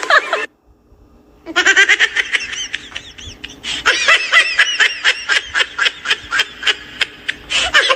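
A high-pitched laughter sound effect, starting after a brief silence about a second and a half in and going on in quick repeated bursts of giggling.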